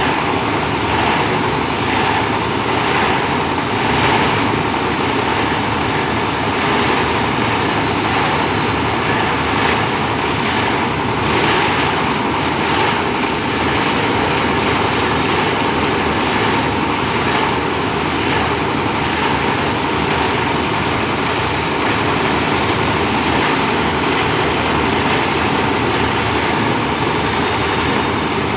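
Plastic packaging shredder machine running with a loud, steady mechanical noise and a faint steady whine.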